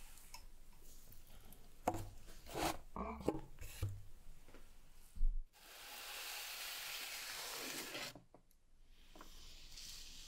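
Cardboard rubbing and scraping as a boxed pair of headphones is lifted out of a cardboard shipping box, with a string of scrapes and knocks, then one heavier thump about five seconds in. A steady hiss follows for a couple of seconds.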